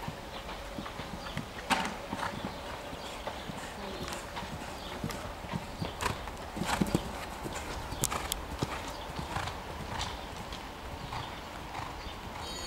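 Hoofbeats of a Holsteiner mare cantering on a grass show-jumping course: an irregular run of hoof strikes with a few sharper knocks.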